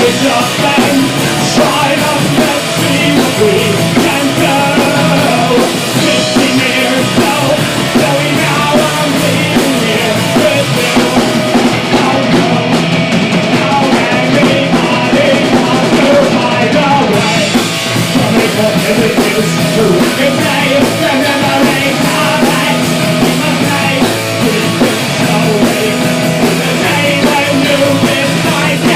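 Punk rock band playing a fast song live on drum kit and amplified guitars, loud and unbroken.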